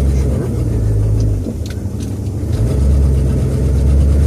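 Low drone of a 1966 Ford Thunderbird's V8 and running gear heard inside the cabin while driving. The drone eases off for about a second in the middle, then comes back strong.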